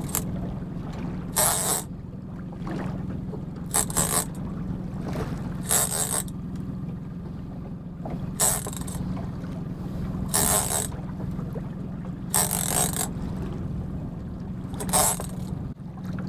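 A small boat at sea: short rasping, splashing bursts come roughly every two seconds over a steady low hum.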